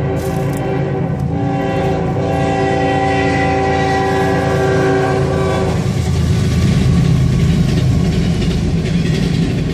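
Union Pacific freight locomotive's multi-chime air horn sounding as it approaches a grade crossing: a short break about a second in, then a long blast held for several seconds. The horn stops about six seconds in, and the heavy rumble and rattle of the passing train takes over, locomotives and then double-stack container cars.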